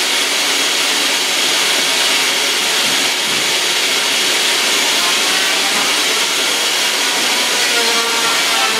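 Makita benchtop table saw running steadily with its blade spinning free, not cutting: a continuous high motor whine.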